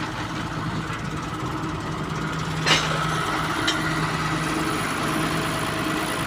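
Heavy diesel engine running steadily at idle, with a sharp metallic clank about two and a half seconds in and a lighter clank a second later.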